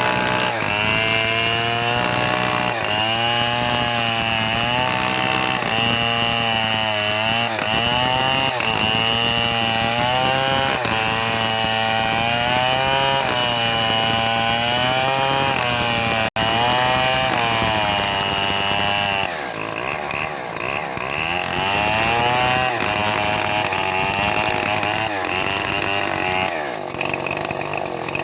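Home-built chainsaw ripping lengthwise through mango wood for planks, its engine pitch rising and falling every second or two as it loads up in the cut and recovers. It is somewhat quieter and less regular for the last several seconds.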